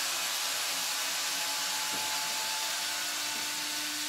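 Cordless drill-driver running at a steady speed with a faint steady whine, backing out a screw that holds a shock absorber's mounting pin.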